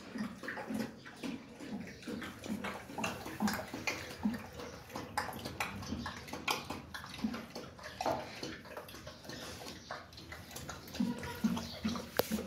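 Rottweiler lapping water from the bowl of a gravity water dispenser, a steady run of wet laps about two a second.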